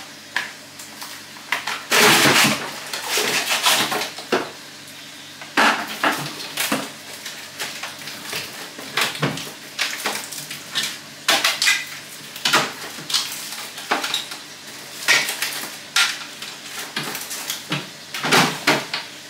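Irregular clinks and clatters of hard objects being handled, several every few seconds, over a faint steady background.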